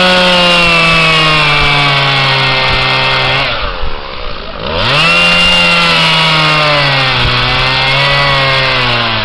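Two-stroke chainsaw held at high revs, its pitch sinking slowly. About three and a half seconds in it drops back briefly, then revs up again and sinks once more before easing off near the end.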